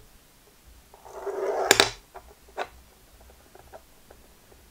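A small 3D-printed plastic die sliding and scraping down a tilted board for nearly a second, ending in a sharp clack, with a lighter click a second later and a few faint ticks.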